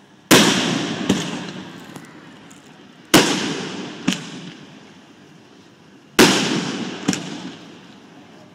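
Aerial firework shells bursting: three loud bangs about three seconds apart, each trailing off in a long fading rumble, with a smaller sharp crack about a second after each bang.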